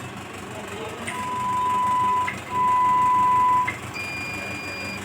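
Elisa 600 ventilator sounding its power-up tones: two long beeps of about a second each at the same pitch, the second louder, then a fainter, higher tone about a second long. Its air compressor runs steadily underneath.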